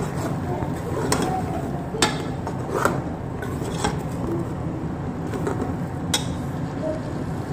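A metal spoon stirring beef, tomatoes and spices in an aluminium pressure-cooker pot, clinking sharply against the pot about five times over a steady sizzle from the cooking masala.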